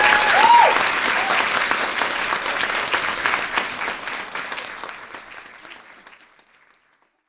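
Audience applauding, with a cheer near the start; the clapping fades away over about six seconds.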